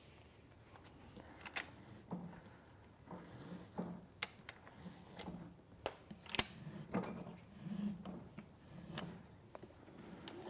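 Faint, irregular clicks and clinks of the metal clips on a Pilates reformer's ropes and hand loops as they are unhooked and handled, with soft rubbing of rope and straps between them.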